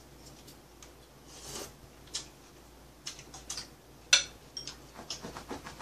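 Spoon and chopsticks clicking against a glass bowl and dishes while eating. There are a few scattered clicks, one sharp clink about four seconds in, then a quick run of small ticks near the end.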